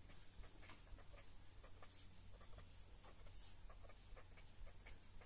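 Faint scratching of a pen on paper in short, irregular strokes as words are written and small crosses drawn, over a low steady hum.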